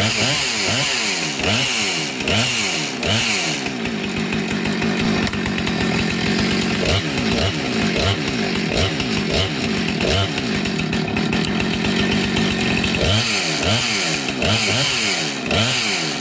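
Husqvarna two-stroke chainsaw running, its throttle blipped in repeated rising and falling revs at the start and again near the end, with steadier running in between. It is being run while its freshly freed chain brake is engaged and released to test it.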